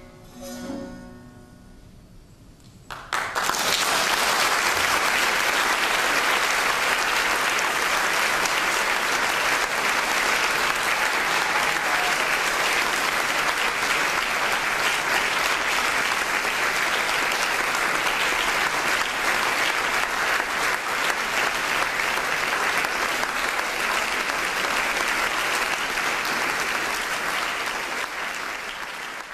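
The last plucked notes of a long-necked lute ring out and fade, then about three seconds in an audience breaks into steady, sustained applause that tails off near the end.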